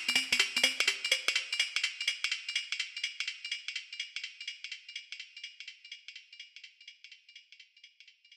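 Closing music fading out: a fast, even clicking percussion pulse with no bass, dying away steadily over several seconds.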